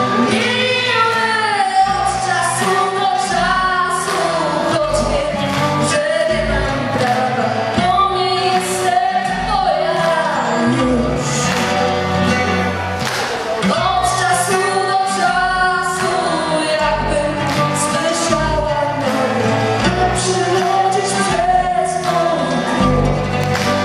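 A woman singing a song into a microphone through a PA, over amplified backing music with a bass line.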